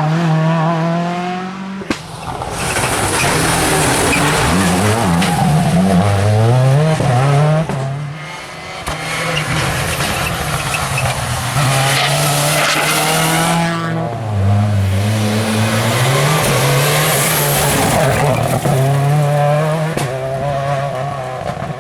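Seat Córdoba WRC rally car's turbocharged four-cylinder engine driven hard, its pitch climbing through each gear and dropping at the shifts and lifts, over and over.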